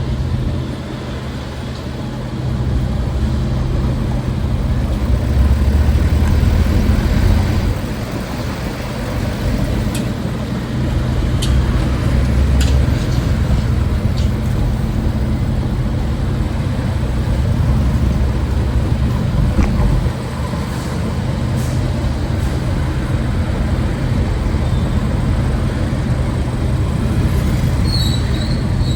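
City street traffic: motor vehicle engines running close by with a steady low hum, the rumble swelling louder and easing off twice. A short high squeak sounds near the end.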